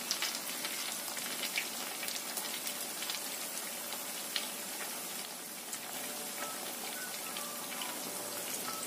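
Mini tofu martabak parcels in spring roll wrappers deep-frying in plenty of oil over medium-low heat: a steady sizzle with scattered small crackling pops.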